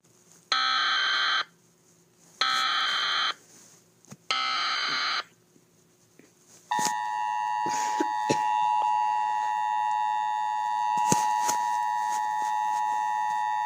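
Emergency Alert System tones: three short, screechy data bursts of the SAME header about two seconds apart, then, about seven seconds in, the steady two-tone EAS attention signal, with a few faint clicks over it.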